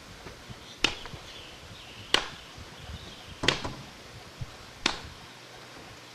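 Wood being chopped: four sharp, evenly paced strikes about a second and a third apart.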